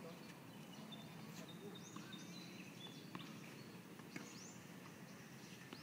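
Faint outdoor ambience with birds chirping in short rising notes and brief whistles, and a few faint sharp knocks.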